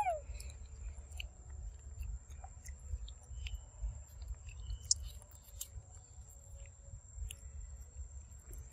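Macaque chewing and biting into ripe mango: soft, wet mouth sounds and small clicks, with a short falling squeak right at the start.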